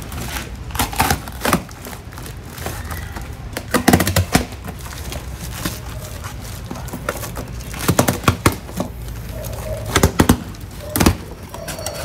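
Plastic wrapping and packing straps being pulled and cut off a shipping crate by hand: sharp crackles and snaps in short, irregular clusters.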